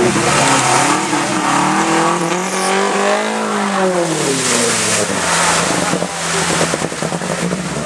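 A 4x4 off-road vehicle's engine revving hard in rising and falling surges as it drives through a deep water crossing. Water splashes and surges around it from about four seconds in.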